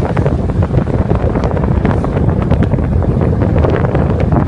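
Wind buffeting the microphone of a phone carried on a road bicycle at speed: a loud, steady low rush.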